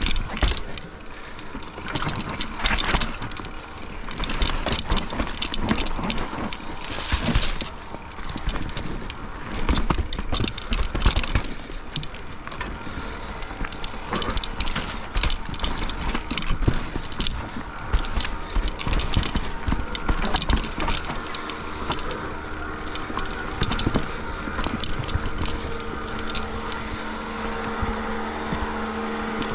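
Mountain bike riding down a rough, wet trail: a constant clatter of knocks, rattles and ticks from the tyres, chain and frame over roots and rocks. Near the end it settles into a steadier hum.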